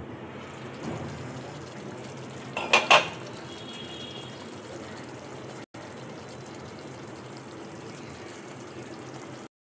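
Kitchen cooking sounds: a steady hiss from a pan on the stove, with two sharp clanks of a metal utensil against cookware about three seconds in.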